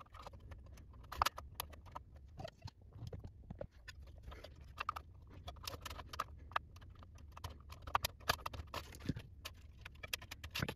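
Scattered light clicks, taps and scrapes as a Cudy AX5400 PCIe Wi-Fi card's metal bracket and cable are handled and slid into the computer case's expansion slot.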